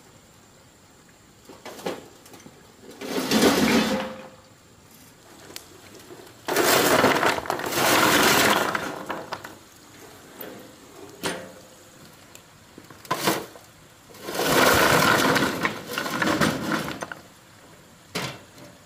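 Loose stone and gravel clattering in three long spills of a couple of seconds each, with a few single sharp knocks of stone between them.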